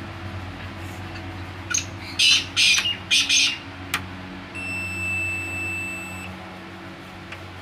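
A few loud, harsh chirping bursts, a sharp click, then one steady high electronic beep lasting under two seconds from the UPS board's piezo buzzer, over a steady low hum.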